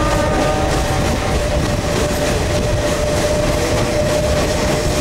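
DEMU passenger train running along the track, heard from on board: a steady, loud rolling rumble with a constant whine held at one pitch throughout.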